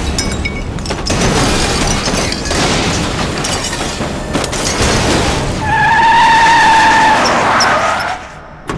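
Film sound effects of a car crash: a car flung over and smashing onto its roof against a van, with crashes and impacts over engine and tyre noise. About six seconds in, a loud high squeal is held for about a second and a half. The sound drops off sharply near the end.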